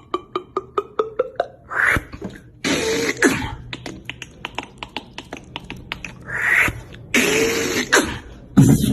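Vocal beatboxing: fast runs of sharp mouth clicks, several a second, broken by longer hissing, snare-like bursts. Some clicks carry a faint pitched tone.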